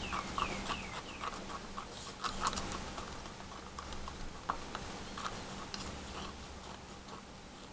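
A stirrer scraping and tapping against the walls of a plastic cup while it folds thick two-part silicone rubber. The sound is a run of quick, irregular small ticks and scrapes, busier in the first few seconds and sparser after.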